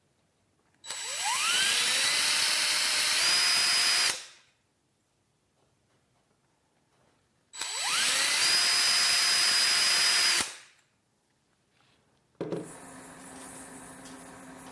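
DeWalt cordless drill spinning a pen barrel trimmer, run in two bursts of about three seconds. Each time the motor whine climbs in pitch as it spins up, holds steady, then stops. Near the end a quieter steady hum starts.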